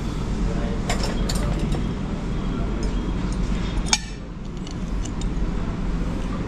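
Metal spoon clicking and scraping against the rim of a clay handi as the dough seal on a pot of dum biryani is broken open, with a sharp clink just before four seconds in, over a steady low hum.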